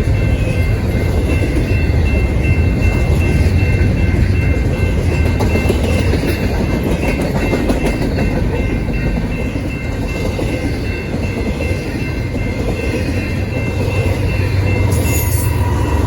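A freight train rolling past close by: a steady heavy rumble of wheels on rail with some clickety-clack and a faint steady high whine over it.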